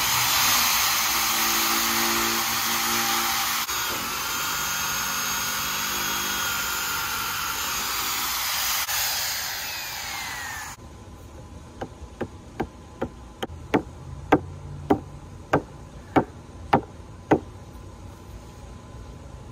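Hammer drill boring through a wooden timber, a loud steady grinding whir that stops suddenly partway through. Then a hammer drives half-inch steel rebar down into the ground, about a dozen sharp blows at roughly two a second.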